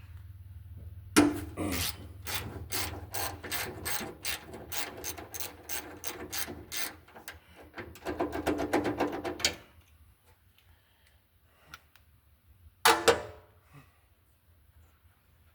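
Ratchet wrench clicking at about three to four clicks a second, then a quicker, denser run of ratcheting, followed near the end by a single clunk of metal.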